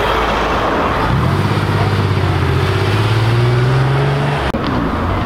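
Air-cooled Porsche 911 cabriolet's flat-six pulling away, its engine note rising slowly in pitch for about three seconds. The sound breaks off suddenly a little before the end.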